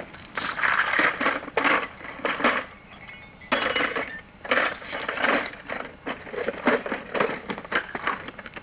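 Metal tools clinking and rattling as they are handled in a toolbox, an irregular run of quick clicks and knocks with a short lull about three seconds in.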